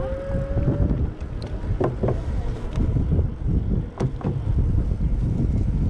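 Wind buffeting the microphone over a low rumble of a bicycle being ridden along the pier, with a few sharp knocks. A steady tone, rising slightly in pitch, stops about a second in.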